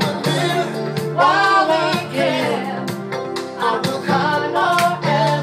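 Music: a song with a singing voice over instruments and a steady beat.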